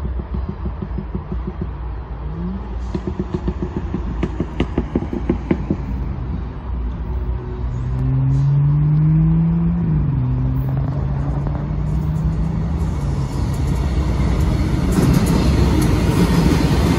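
BNSF freight train approaching and drawing level, led by three GE diesel locomotives (a C44-9W, an ES44DC and an ET44C4). Their engines rumble, the engine note rises and then drops about midway, and the sound swells into a louder roar of engines and wheels as the lead units come alongside near the end.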